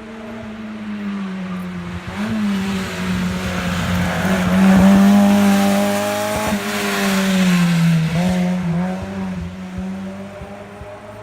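A tuned car's engine revving hard as it climbs toward, passes close by and pulls away on a slalom hill-climb course. Its pitch dips and rises again about two seconds in and near eight seconds as the driver lifts and gets back on the throttle.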